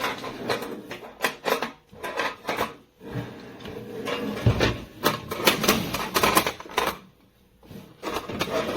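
Irregular clicks, knocks and clatter of a carbon steel roasting pan and its wire rack being handled, with a brief lull a little past the middle.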